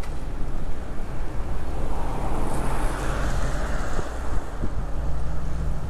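Wind rushing over the microphone of a fixed-gear bike riding along a city street, over a steady low rumble of traffic. A rush of noise swells and fades about two to four seconds in.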